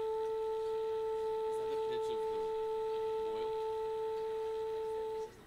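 A steady, pure musical tone held on one pitch near concert A, cut off suddenly near the end: a tuning note sounded as the band tunes up before playing.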